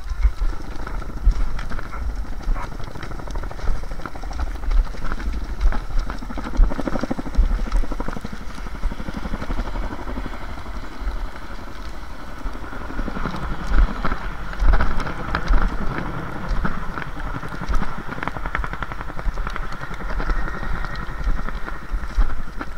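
Classic cross-country skis hissing along the tracks, with scattered clicks of ski poles planting in the snow. Wind rumbles unevenly on the skier's body-worn camera microphone throughout.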